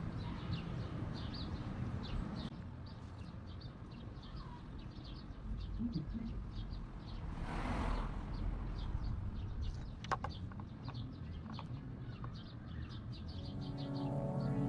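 Small birds chirping over a low rumble, with a brief noisy swell about halfway and a few clicks a little later; music fades in near the end.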